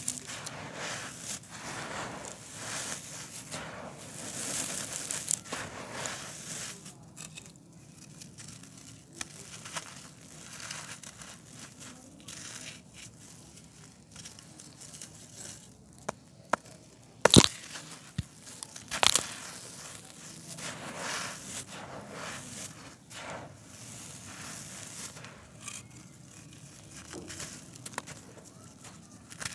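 Dry, gritty concrete discs crushed and crumbled by hand: a steady run of crunching and crackling as grit breaks off and trickles down, with a few louder sharp cracks a little past halfway.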